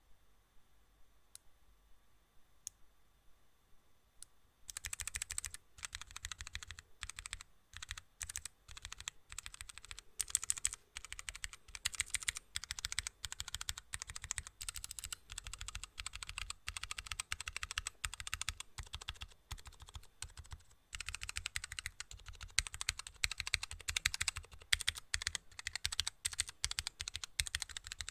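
Rapid, irregular clicking that starts about five seconds in, after a few faint spaced clicks, and runs densely on with a short pause about three-quarters of the way through.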